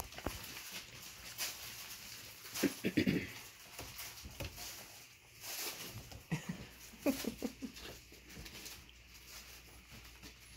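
Doodle puppies play-fighting and moving about in a whelping box: scuffling and pattering paws, with short puppy vocal sounds about three seconds in and again around seven seconds.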